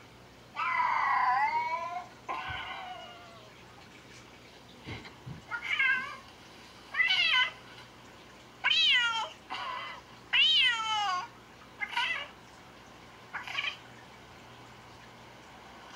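A cat meowing repeatedly: about eight calls a second or two apart, the first one long, several of the later ones rising and then falling in pitch. A soft thump comes about five seconds in.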